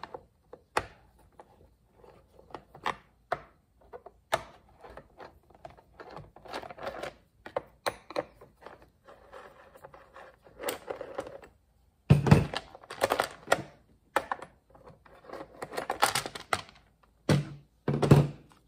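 A T27 Torx driver loosening the screws of a Stihl chainsaw's plastic top cover, then the cover being lifted off and set down: a run of clicks, scrapes and hollow plastic knocks, loudest in the second half.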